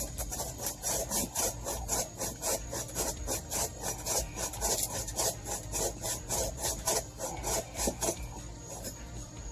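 Small folding hand saw cutting through a branch in quick, even back-and-forth strokes, its teeth rasping through the wood. The strokes stop about a second before the end.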